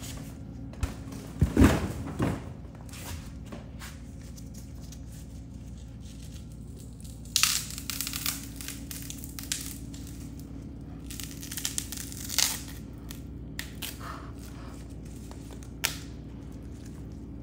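Beef rib bone cracking and crunching in irregular bursts, loudest about two seconds in, over a low steady hum.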